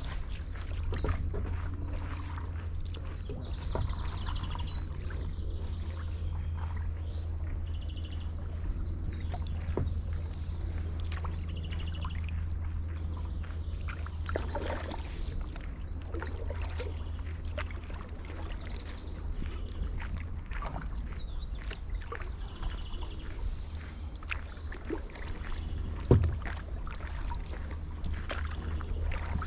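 Paddle strokes from a stand-up paddleboard, with water splashing and dripping. Small birds sing repeated trills over a steady low rumble. One sharp knock near the end.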